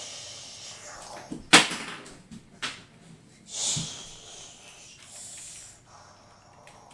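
Small plastic toys being handled: a few sharp clicks, the loudest about one and a half seconds in, among bursts of breathy hissing.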